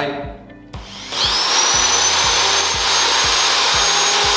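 Bosch GSB 550 impact drill's motor switched on and locked on with the trigger lock button, running free with nothing in the chuck. About a second in it spins up with a rising whine, then runs at a steady high whine.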